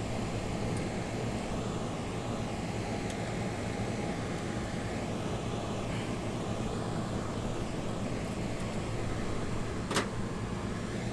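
Condenser fan on a walk-in freezer's condensing unit running with a steady hum while the compressor sits off, which the tech takes most likely for a low-pressure trip. A single sharp click about ten seconds in.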